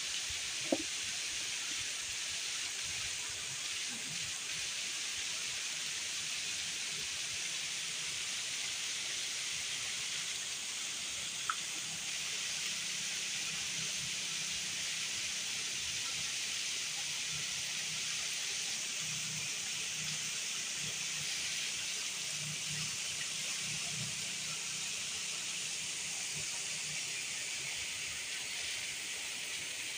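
Steady rushing of river water, with a faint low hum underneath in the middle stretch and a couple of small clicks.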